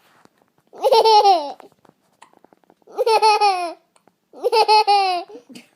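Baby boy laughing in three separate bursts, each a run of high-pitched, choppy laughs about a second long.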